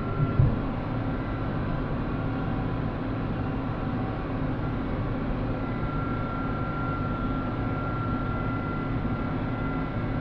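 Tractor pulling a Vermeer round baler through a windrow: the engine runs steadily under load with a steady high whine, and there is a brief thump about half a second in.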